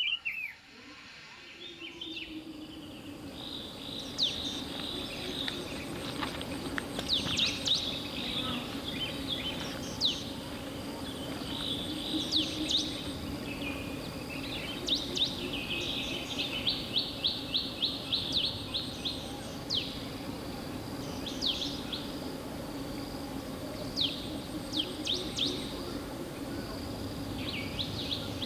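Forest birdsong: small songbirds giving repeated quick chirps and short trills, some in fast runs of notes, over a steady low drone and an even background hiss.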